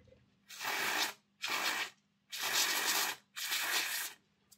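Aerosol contact cleaner sprayed in four short hissing bursts, the third a little longer than the others.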